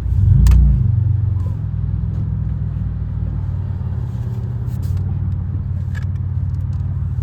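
Pontiac Grand Prix GT's V6 through a catless exhaust, running at low revs with a steady deep drone. About half a second in, the note swells briefly in a short rise in revs, then settles back.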